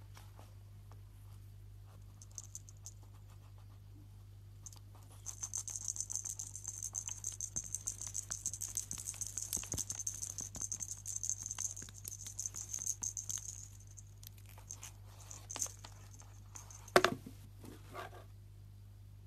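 Fast dry rattling patter for about eight seconds while a cat is played with using a stick toy, then one sharp knock near the end.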